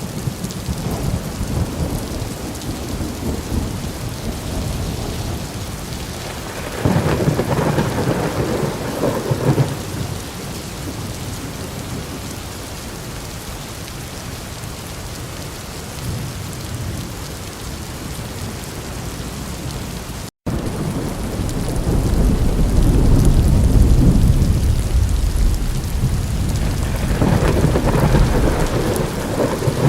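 Steady rain with thunder: a sudden thunderclap about seven seconds in that rolls for a couple of seconds, then a long, deep rumble of thunder building from about two-thirds of the way through. The sound drops out for a split second near the middle.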